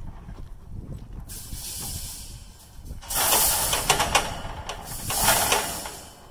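Dry rustling and scraping as a welded-wire fence panel is handled and moved through dry grass, in two loud bursts about three and five seconds in.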